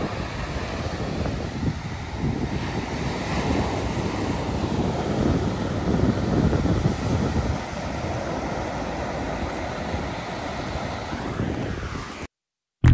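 Ocean surf washing on a sandy beach, with wind buffeting the microphone in uneven gusts. It cuts off suddenly near the end.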